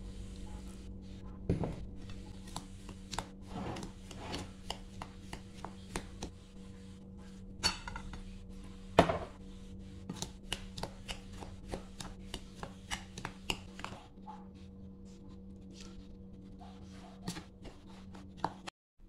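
Plastic spoon stirring and mashing a moist, crumbly mixture in a plastic bowl: irregular scrapes, clicks and taps of spoon against bowl, with a sharp knock about nine seconds in. A steady low hum runs underneath.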